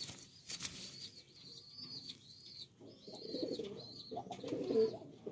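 Domestic pigeons cooing, starting about three seconds in and growing louder, over a thin, repeated high chirping from another bird, with a couple of brief rustles near the start.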